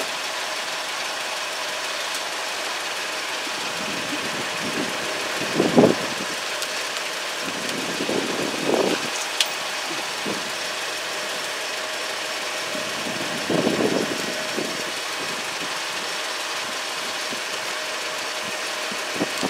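Dodge Caravan transmission control relay being switched by feeding 12 V to its trigger wire by hand, since the transmission computer is sending no signal to it: a few dull clicks about six, nine and fourteen seconds in over a steady background hum.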